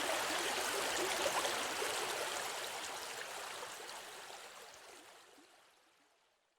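River water flowing and gurgling, a steady rush that fades out steadily from about two seconds in to silence at the end.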